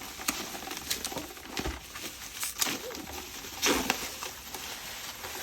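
Packing material being handled and pulled away during unboxing: irregular rustling and scraping with scattered clicks, strongest near the middle.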